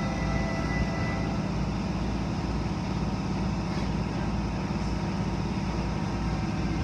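Automatic tunnel car wash heard from inside the car: cloth brushes spinning against the car and water spraying on it, over a steady low drone of machinery.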